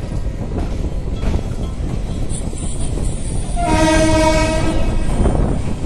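Locomotive horn sounding one held note of about a second, roughly three and a half seconds in, over the steady rumble and wind noise of the train moving off.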